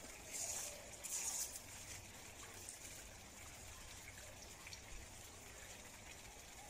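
Hands scraping and pressing loose, crumbly garden soil around an artichoke seedling: two brief gritty rustles in the first second and a half, then only faint rustling.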